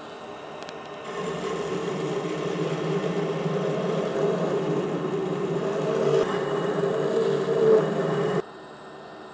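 Belt grinder with a coarse 36-grit belt profile-grinding the edges of a forged EN9 steel axe head. The steel is pressed into the running belt from about a second in, giving a loud, steady grinding that cuts off abruptly near the end.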